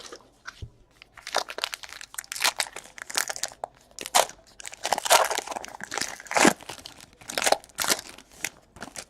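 Plastic wrapping crinkling and tearing as a sealed trading card box and its pack are opened by hand, in a run of irregular sharp crackles.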